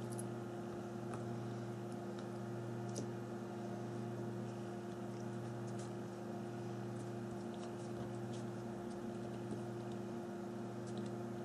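Steady low background hum with a few faint, light ticks scattered through it.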